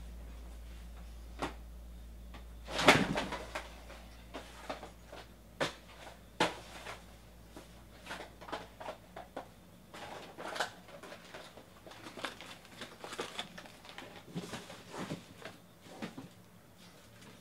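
Scattered crinkling and light clicks of card packaging being handled, with a louder crinkle about three seconds in.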